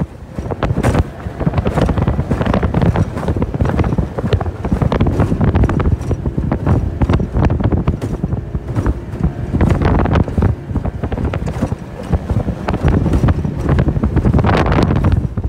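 Heavy wind buffeting the microphone as a small jon boat runs through choppy water, with frequent irregular knocks as the hull slaps the chop.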